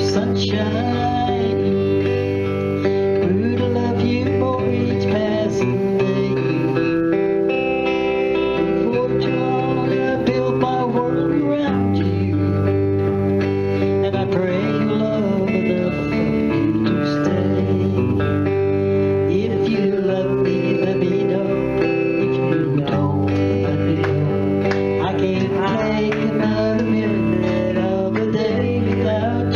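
Live country-pop music: a Telecaster-style electric guitar played over held bass notes and sustained chords, in a stretch without sung lyrics.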